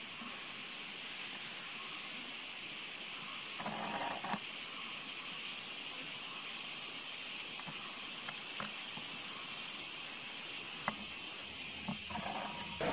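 Steady high-pitched hiss of forest background, with a few scattered sharp clicks.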